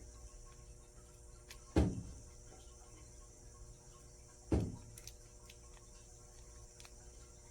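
Two dull thumps, nearly three seconds apart, over a faint steady hum and hiss.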